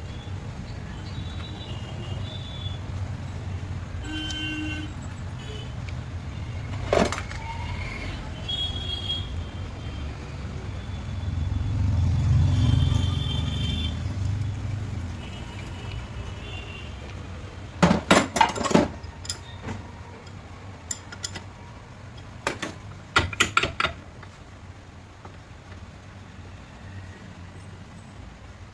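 Low steady rumble of road traffic, swelling as a vehicle passes about halfway through, with a few sharp metal clinks of parts or tools being handled in two short clusters later on.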